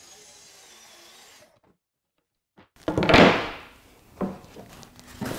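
A plywood panel slid across a wooden workbench in one short scraping swish, followed by two or three light wooden knocks as the pieces are set down.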